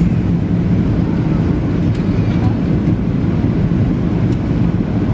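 Steady, loud, low engine rumble of a vehicle running, with no change in pitch.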